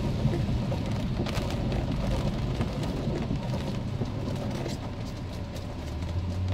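Rain falling on a moving car, with a steady low rumble of road and engine noise.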